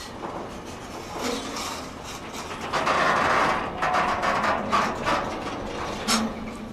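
Freight train of Freightliner Heavy Haul bogie hopper wagons rolling past close by: wheels clicking and wagons clanking and rattling in a quick irregular run, louder from about halfway through.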